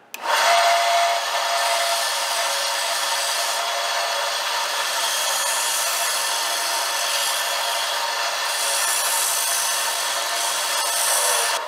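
Woodtek combination spindle and disc sander switched on, its motor starting suddenly and then running steadily while a piece of wood is held against the oscillating sanding spindle, which adds a hiss of abrasive on wood. The machine cuts off near the end.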